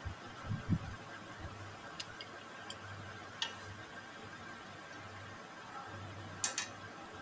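Ice cubes clinking against a steel bowl of ice water: a few faint, scattered clicks and soft knocks, the loudest a double click about six and a half seconds in.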